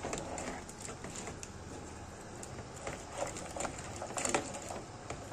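Thick blue crab pasta sauce sputtering and popping in a pan over a high flame as the last of its liquid cooks off: irregular small pops and crackles over a low steady hiss.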